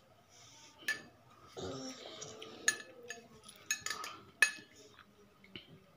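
A metal spoon clinking against a drinking cup, about five sharp separate clinks.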